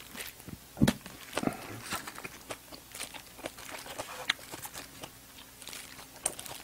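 Close-miked mouth chewing: irregular wet clicks and smacks of a person chewing food, with one sharper smack about a second in.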